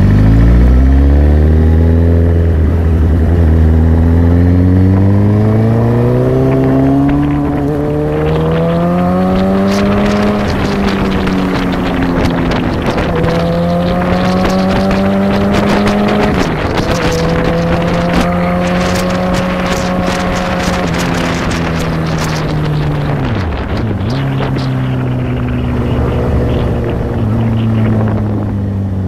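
Motorcycle engine pulling up through the gears: its pitch climbs steadily for about ten seconds, drops at each shift, and dips sharply once near the end. Wind buffets the microphone with a rough hiss and crackle at speed, strongest through the middle.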